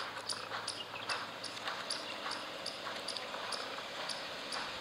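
Light handling of a cardboard retail box as it is turned over in the hands, over an even, quick ticking of about three clicks a second.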